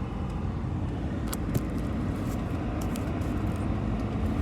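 Steady engine and road drone heard inside the cab of a loaded truck on the move, with a few faint clicks.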